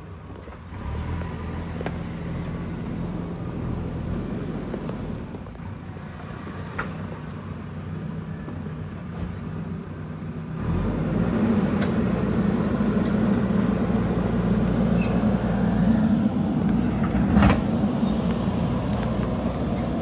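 JCB backhoe loader's diesel engine running as the backhoe arm digs rocky soil, getting louder about halfway through as it works under load. A sharp knock sounds near the end.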